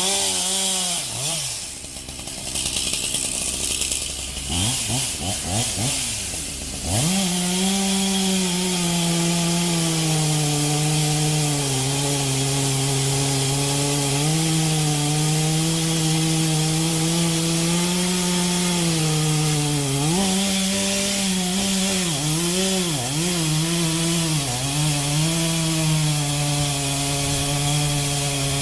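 Chainsaw revving up and down in quick blips for the first several seconds, then running steadily at high speed. Its pitch dips and recovers several times in the last third.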